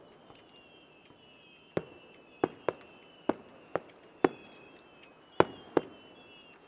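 Aerial firework shells bursting, about eight sharp single bangs at irregular intervals, each with a short echo.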